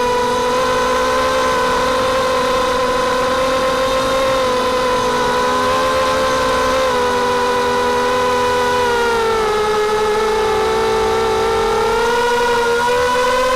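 Mini quadcopter's brushless motors (2204 2300KV) spinning 5x3 props: a steady whine whose pitch sinks gradually, is lowest about ten seconds in, then climbs again near the end as the throttle changes.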